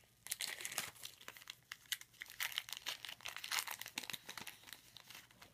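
Foil wrapper of a Topps football card pack being torn open and crinkled by hand, a dense run of crackles that stops near the end.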